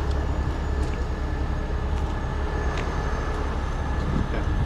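Heavy boom tow truck's diesel engine running steadily, a continuous low rumble.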